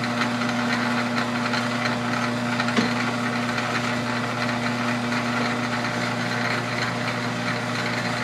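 South Bend lathe running a light skim pass on a square thread: a steady motor and gear-train hum, with one brief click about three seconds in.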